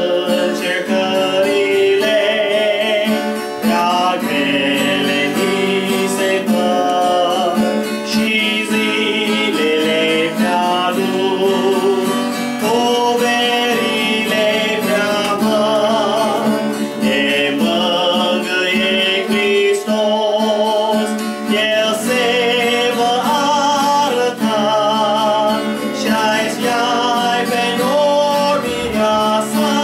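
A man singing a religious song, accompanying himself on a strummed acoustic guitar.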